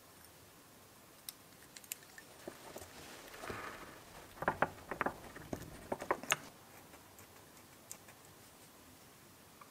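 Light clicks and taps of an angle grinder's aluminium gear housing being handled as the spindle-lock button and its spring are pressed into place. The clicks bunch together in the middle, with a little rubbing among them.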